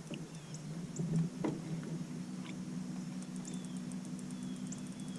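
Fishing reel being cranked while a hooked bass is reeled in: faint irregular high ticks and a couple of sharper clicks, over a steady low hum.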